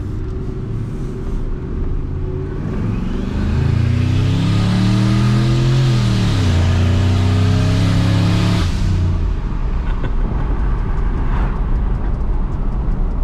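Turbocharged 2003 Ford F-150's 5.4-litre V8 at full throttle from a rolling start, heard from inside the cab. The engine note climbs in first gear, drops at the shift into second about six seconds in, then cuts off sharply when the throttle is lifted near nine seconds. The boost-actuated exhaust cutout is opening under boost and sounds like it opens the rest of the way in second.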